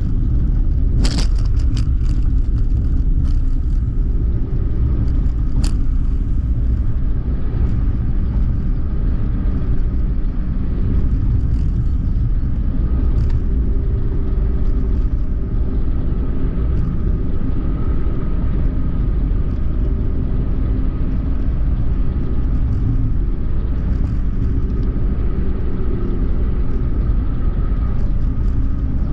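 Suzuki Hustler kei car driving along a road: a steady low rumble of engine and tyre noise, with a faint engine hum and two sharp clicks, about a second and about six seconds in.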